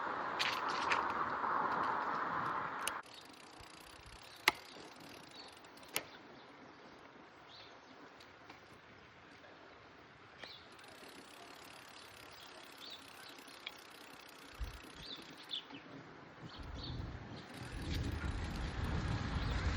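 Outdoor ambience on a bicycle ride: a steady hiss that cuts off abruptly about three seconds in, then a quiet stretch with two sharp clicks, faint bird chirps, and a low rumble of an approaching motor vehicle that builds up near the end.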